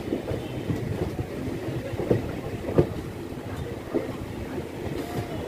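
Passenger train coach wheels running over the track, heard from the coach's open doorway: a steady rumble with irregular sharp knocks as the wheels strike rail joints.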